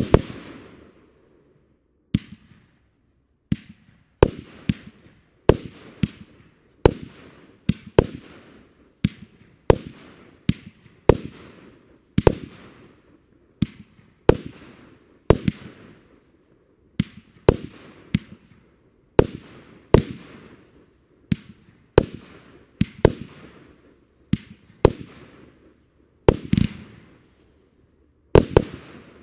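A 40-shot Lesli 'Dahlia Explosion' firework battery (cake) firing its shells in quick succession, one to two a second. Each shot is a sharp bang with a fading tail. Near the end come two quick pairs of bangs.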